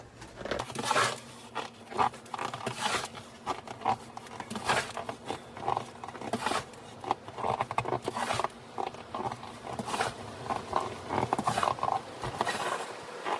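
Snow shovel scooping and tossing deep snow by hand, a crunchy scrape every second or two.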